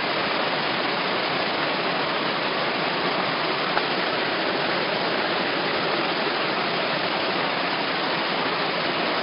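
Steady rushing of a torrential downpour and floodwater pouring down a city street.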